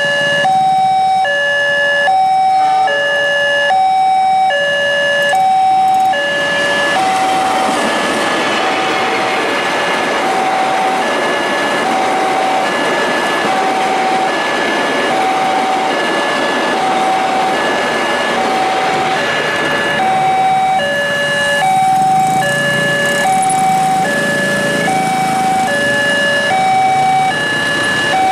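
Railway level-crossing warning alarm sounding a repeating high-low two-tone chime, about one pair a second. From about six seconds in, the rushing noise of the KA Jayabaya passenger train passing over the crossing swells over the chime, then fades away around twenty seconds in while the chime carries on.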